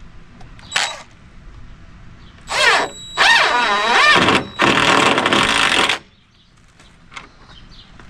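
Cordless drill/driver running screws into wood in three runs, its whine rising and falling in pitch as the trigger is feathered, the last run harsher; a brief short burst comes just before.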